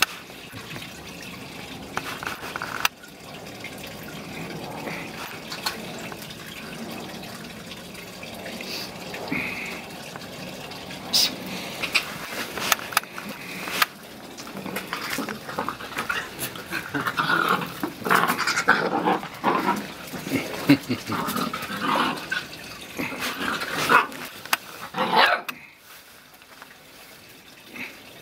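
Puppies playing, giving many short yaps and whines, the calls coming thick and fast over the second half.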